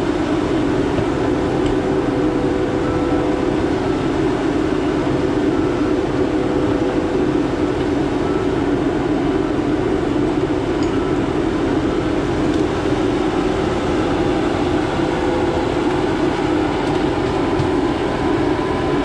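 Heavy logging machinery running steadily: a diesel engine's continuous drone with a faint steady whine above it, heard from inside a machine cab.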